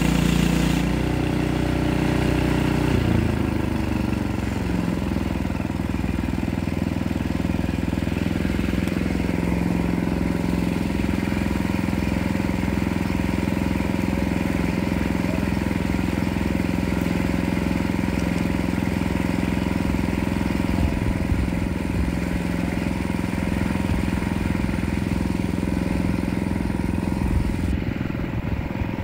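Gas engine of a portable bandsaw sawmill running. It drops from a higher speed to a steady idle about three seconds in.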